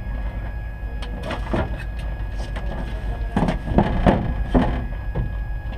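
Steady low rumble inside a drag race car's cockpit, with a constant thin whine over it. A few louder muffled bursts come about three and a half to four and a half seconds in.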